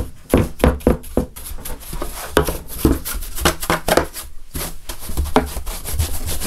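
Quick, irregular scraping and tapping strokes of hand work on a tray, several a second.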